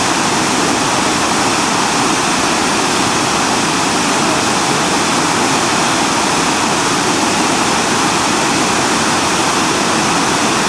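Sirithan Waterfall's falling water: a loud, steady, unbroken rush.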